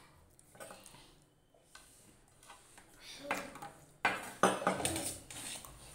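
Steel drinking tumblers and plates knocking and clinking on a glass tabletop during a meal, quiet at first, then busier, with two sharp knocks about four seconds in.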